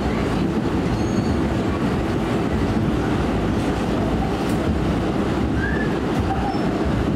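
Ride noise heard inside an R179 subway car running at speed: a steady, low-heavy noise of wheels on rail, with a few faint, brief squeaks.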